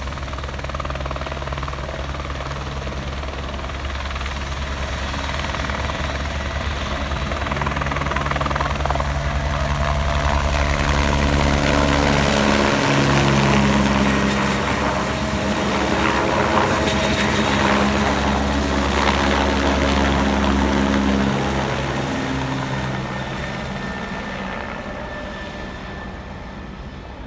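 Eurocopter AS355 N twin-turbine helicopter taking off and climbing away: steady rotor beat with a thin high turbine whine, growing louder as it passes overhead about halfway through, then fading as it flies off.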